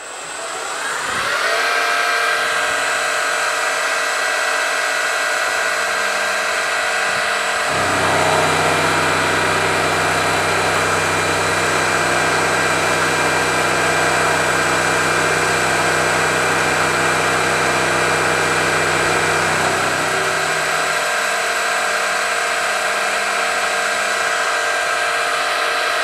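Milling-machine spindle spinning up over the first couple of seconds and then running with a steady whine, while an 8 mm carbide end mill takes a 2 mm deep cut in a metal block under CNC feed. A deeper hum joins about eight seconds in and drops away about twenty seconds in.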